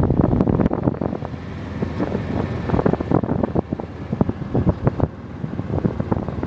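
Wind buffeting the microphone on a moving golf cart, in rough uneven gusts, with the cart running underneath.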